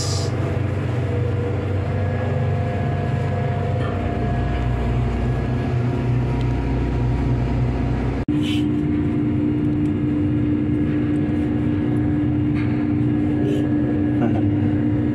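Steady, loud drone of ship's machinery, a low hum with steady tones. About halfway through it cuts out for an instant and comes back with a stronger steady hum.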